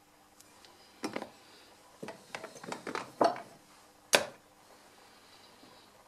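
Knives being handled and set down on a clear plastic organiser box of beads: a scattered run of light clicks and clatters, the sharpest about four seconds in.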